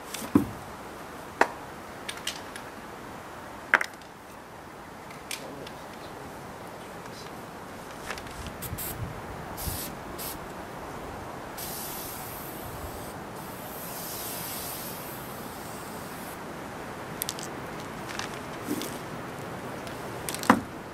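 A staple gun fired several times, five sharp snaps in the first five seconds or so, with scattered lighter clicks later. A few seconds of high hissing rustle comes near the middle.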